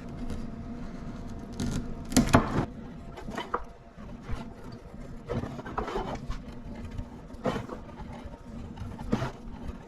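Irregular scrapes and knocks from stripping heavy rubber-insulated welder cable by hand, roughly one every second or two, the loudest about two seconds in.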